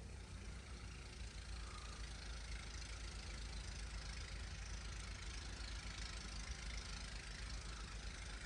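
Storm wind blowing steadily with a low rumble, swelling into a hissing gust from about two seconds in.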